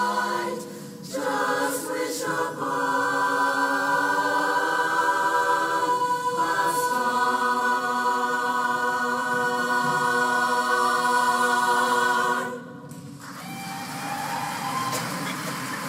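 Women's barbershop chorus singing a cappella, holding a long final chord for about ten seconds until it cuts off. The audience then starts applauding.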